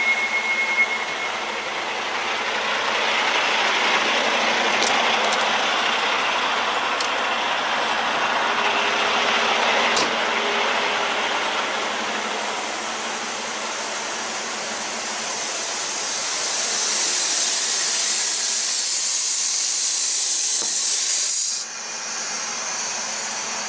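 Compressed air hissing from a tractor-trailer's brake air system, escaping through open air-line couplings (glad hands). It gets louder and brighter, then cuts off suddenly near the end as the shut-off valve knob is turned, so air builds into the brakes instead. A few faint clicks sound along the way.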